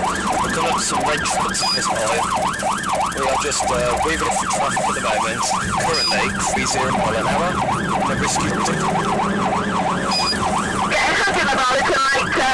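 Police car siren on a fast up-and-down yelp, heard from inside a car over a steady engine and road hum. Near the end it switches to a faster, higher-pitched pattern.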